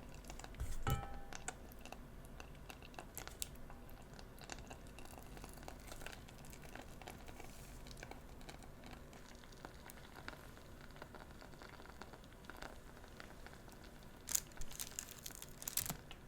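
Bites and chewing of tanghulu, fruit coated in a hard candied-sugar shell: scattered crisp cracks of the sugar shell, with a louder crunch about a second in and a cluster of crunches near the end.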